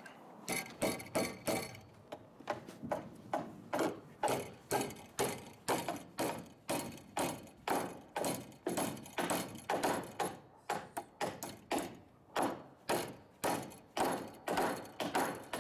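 Hammer driving nails into a wooden roof rafter, a steady run of blows about two a second.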